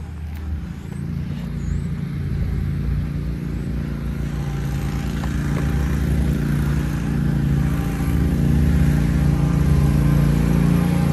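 A motor running with a steady low hum, growing gradually louder.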